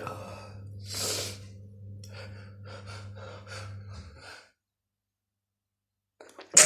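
A person breathing hard between sneezes in a sneezing fit: a sharp gasping inhale about a second in, then faint breaths and small mouth clicks over a steady low hum. The sound drops to dead silence for nearly two seconds, then a sudden sharp burst near the end opens the next sneeze.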